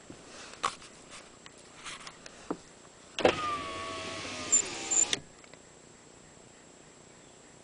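A car's electric power window motor running for about two seconds, a steady whine whose pitch slowly falls, with a couple of sharp knocks near the end before it cuts off suddenly. Before it, a few faint scattered clicks.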